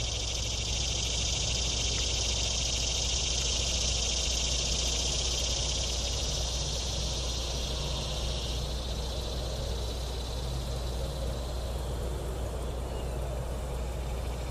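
A high-pitched chorus of calling insects that fades sharply about eight and a half seconds in, over a steady low rumble of wind on the microphone.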